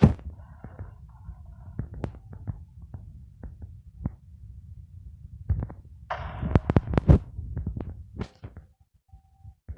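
Irregular knocks and clicks over a low rumble, thickest and loudest about six to seven seconds in.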